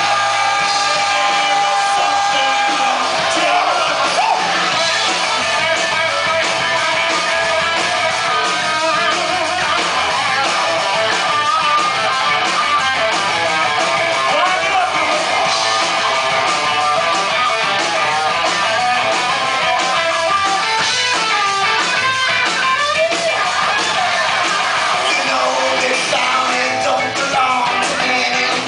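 Live reggae-punk band playing, with electric guitar and bass, recorded from the audience floor. A held note at the start stops about three seconds in.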